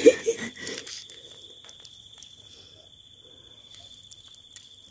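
Rustling and sharp clicks as a hand pokes among wet leaves and stones at a crab's burrow, loudest in the first second, then a quieter stretch with a few faint taps over a steady high-pitched tone.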